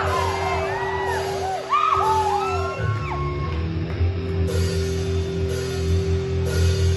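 Electric guitar played through an amplifier in a large hall: steady chords with a long held note. Audience members whoop and yell over it during the first three seconds.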